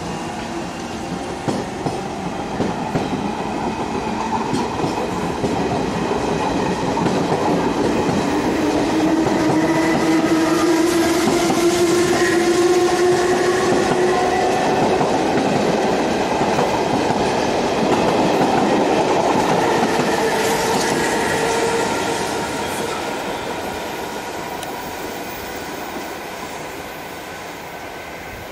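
Electric commuter train running past close by, its wheels clattering over the rails and its motors whining in tones that rise slowly in pitch. It is loudest in the middle and fades as the cars move away near the end.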